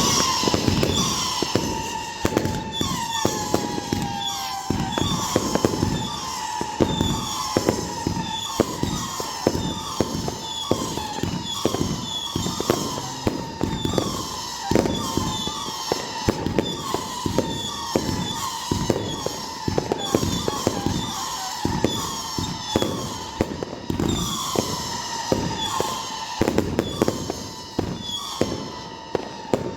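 Fireworks going off nonstop: a dense run of sharp bangs, with short whistles that fall in pitch about once a second.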